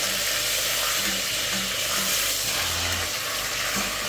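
Chicken breasts sizzling steadily in hot oil in a stainless steel pot as they are turned over with tongs.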